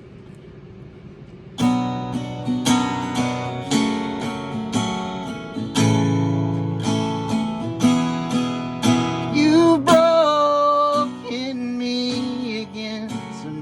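Acoustic guitar strumming chords for a song's intro, starting about a second and a half in after faint hiss.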